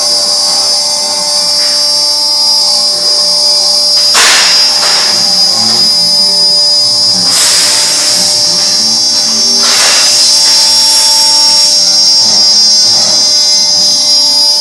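CNC router spindle running with a steady high-pitched whine, joined several times by a louder rushing noise.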